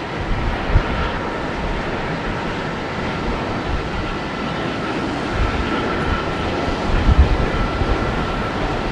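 American Airlines Boeing 777-200's twin jet engines on final approach to land: a steady rush of engine noise with a faint high whine, and a few surges of low rumble about seven seconds in.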